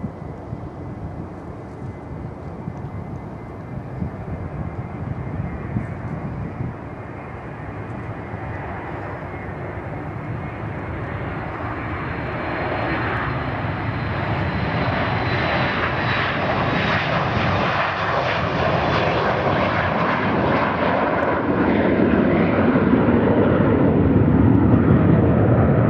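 Boeing 737-200's Pratt & Whitney JT8D low-bypass turbofans at takeoff power as the jet rolls down the runway, passes and climbs away. The sound grows steadily louder, a high whine over the roar in the first half, the roar turning deeper and heavier toward the end.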